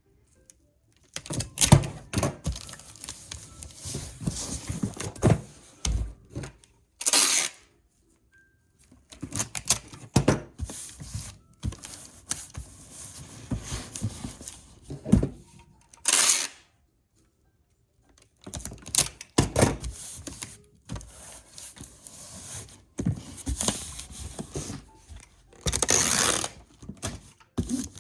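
Hands packing a shipping box: irregular knocks, thumps and rustling of cardboard and packing material. There are three short tearing bursts, about half a second each, spread across the stretch.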